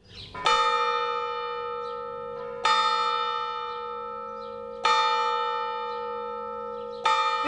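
A church bell tolling four times at an even pace, about two seconds apart, each strike on the same note and ringing on as it fades slowly.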